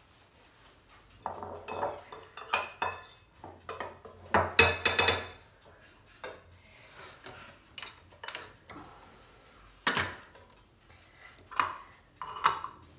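A spoon clinking and scraping against a metal bowl of sifted flour: a run of knocks and ringing clinks in the first half, loudest about four and a half seconds in, then a few scattered clinks.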